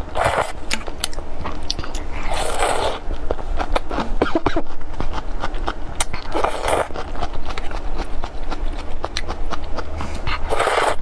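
Close-miked slurping of noodles from a spicy broth: three long slurps about four seconds apart, with wet chewing and lip-smacking clicks between them.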